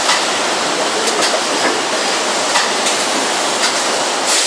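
Shrink-wrapping bundling machine for ice cream tubs running: a steady rushing hiss with a few sharp mechanical clicks and knocks at irregular intervals, the loudest near the end.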